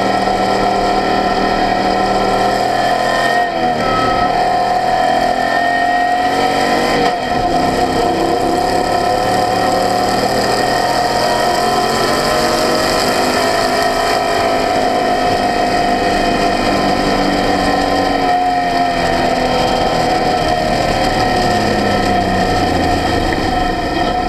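Open-cockpit race car's engine running hard on track, heard from onboard. It dips briefly twice in the first several seconds, like gear changes, and its pitch falls about three quarters of the way through as the car slows.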